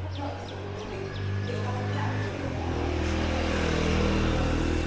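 Motor vehicle engine running steadily and growing louder, peaking near the end as it draws close, with its pitch shifting about halfway through.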